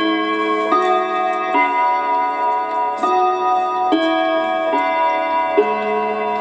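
Clock ticking over a backing track of sustained, steady electronic chords that change about once a second.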